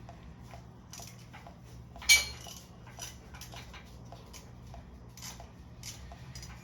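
Hand tools clinking against metal engine parts in scattered light clicks, with one sharp, ringing metallic clank about two seconds in.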